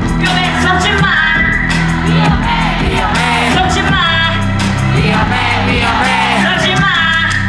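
A musical-theatre song performed live in a hall: singing over loud backing music with a steady beat, with some shouts and whoops.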